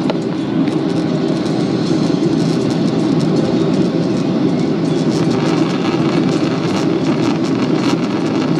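Steady rumble of engines and rushing air inside the cabin of a Boeing 737-800 airliner during landing, with light rattling clicks that grow more frequent about halfway through.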